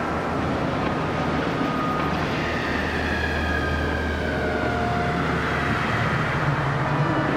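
Horror sound-effect track: a continuous low rumble with a wavering tone that falls in pitch through the middle, and a low tone swelling near the end.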